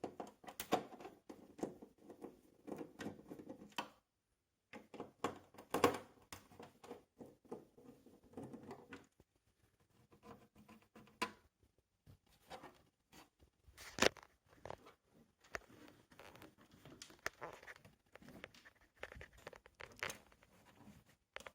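Irregular clicks, taps and scrapes of a screwdriver, small screws and plastic panels as an LG 32LN536B TV is taken apart, with a short pause about four seconds in.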